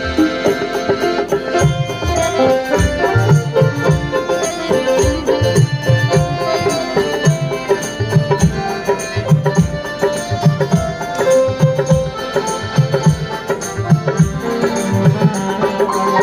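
Music with a steady drum beat, deep drum strokes under sustained melodic instruments.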